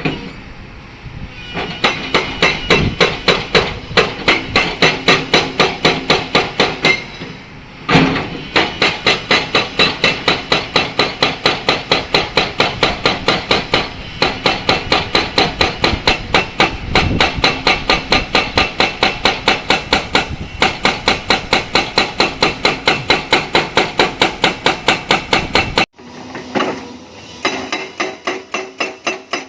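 Hydraulic rock breaker on a Hyundai excavator hammering limestone: a fast, even run of sharp strikes, about four a second, that stops briefly about seven seconds in and again near the end.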